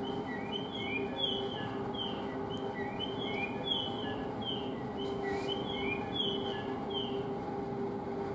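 Short birdlike chirps, repeated mostly in pairs of a falling and a rising note, over a steady hum from an electric train standing at the platform. The chirps stop about a second before the end.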